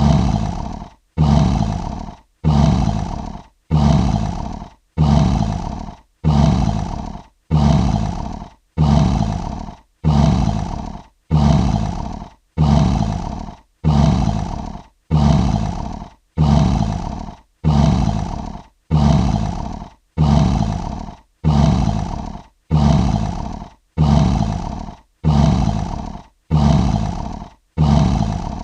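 Lion roar sound effect: one short, deep roar, about a second long and fading at its tail, repeated identically about every 1.4 seconds.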